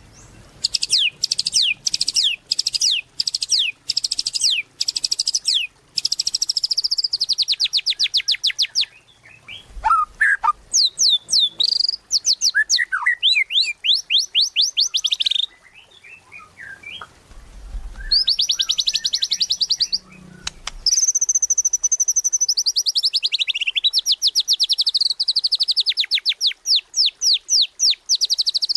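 White-rumped shama (murai batu) singing loudly: long phrases of rapid repeated whistled notes and fast trills, broken by short pauses twice.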